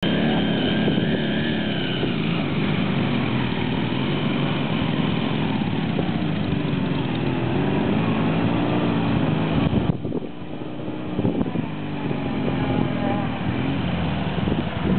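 Sidecar motorcycle engines revving under load as the outfits ride up a hill, the pitch rising and falling with the throttle. About two-thirds of the way through the sound drops suddenly and turns rougher and more uneven.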